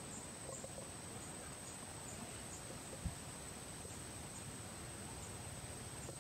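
Faint outdoor background with a steady high-pitched whine and faint, irregular chirps, and one soft thump about three seconds in.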